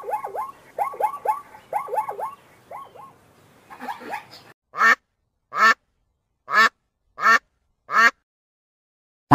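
Plains zebras barking in quick runs of two to four yelping calls that fall in pitch. About four and a half seconds in, these give way to five loud, separate honking calls from flamingos, roughly three-quarters of a second apart.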